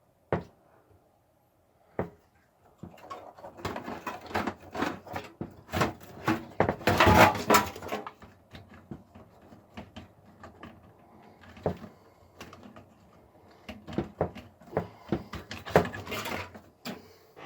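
Rummaging through hardware: scattered clicks and knocks, with a louder stretch of clattering and rustling in the middle and a few sharper knocks near the end.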